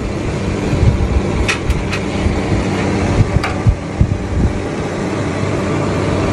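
A steady low mechanical hum under an even background noise, with a few light clicks.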